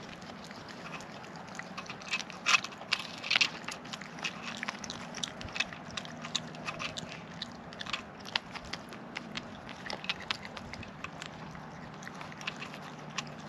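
An animal chewing crunchy food close to the microphone: quick, irregular crunches, a few louder ones about two to three and a half seconds in.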